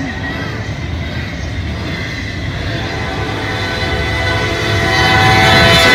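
Approaching locomotive sounding its air horn for a grade crossing: the horn comes in about halfway through and grows steadily louder as the train nears, over the low rumble of the train.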